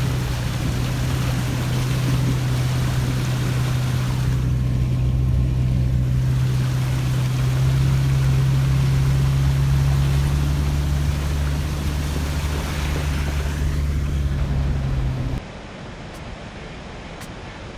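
Jeep Cherokee driving, heard from inside the cabin: a steady low engine drone with tyre and road noise. It cuts off abruptly about fifteen seconds in, leaving a quieter background.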